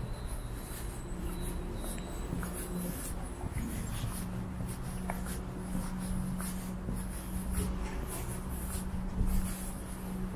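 Footsteps on an asphalt footpath at a steady walking pace, a soft scuff with each step, over a low steady hum.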